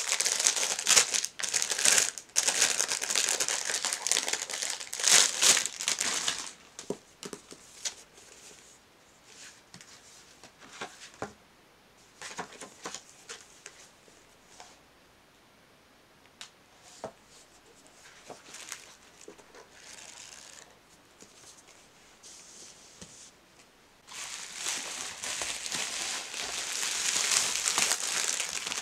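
Plastic packaging crinkling and rustling as books are unwrapped: a dense burst for the first several seconds, then quieter scattered rustles and light taps. Loud crinkling of bubble wrap starts again near the end.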